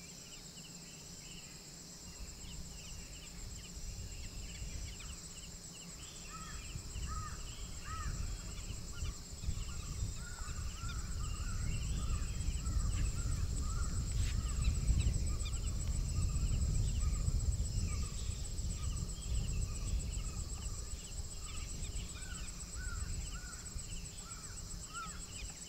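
Night-time forest ambience: crickets trilling steadily and high, with a chorus of short, repeated chirping calls from other animals that grows busier after the first few seconds. A low rumble swells through the middle and fades again toward the end.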